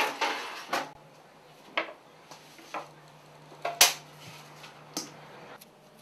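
Kitchen dishes and utensils being handled: a string of separate knocks and clinks, about one a second, the loudest near the middle, with a faint low steady hum through the second half.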